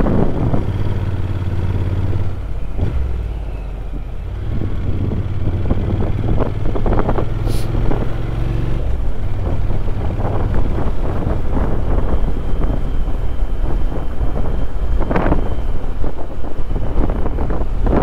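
Motorcycle engine running at road speed, with wind rushing over the microphone. The engine note drops and the level dips about three seconds in, then builds again.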